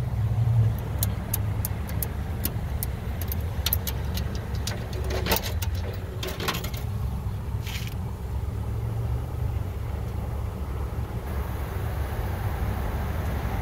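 Payphone keypad buttons being pressed one after another: a run of sharp, irregular clicks lasting about six seconds, over a steady low hum.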